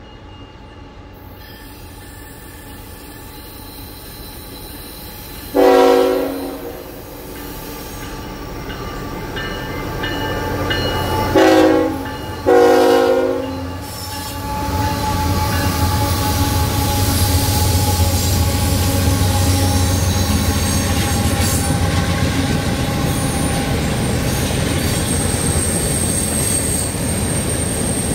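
Air horn of a CSX GE ET44AH freight locomotive sounding for a grade crossing in three blasts: one longer blast, then a short and a longer blast close together. Then the diesel locomotives rumble past, followed by freight cars rolling by with clattering wheels and a high wheel squeal near the end.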